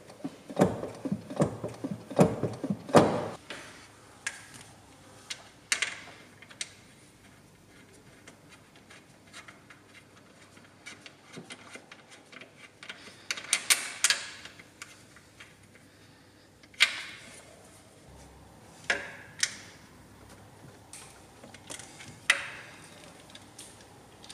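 Clicks and knocks of parts and tools being handled at the side of a Subaru transmission in the engine bay. A busy run of clicks comes in the first few seconds and another about halfway through, then single clicks a few seconds apart.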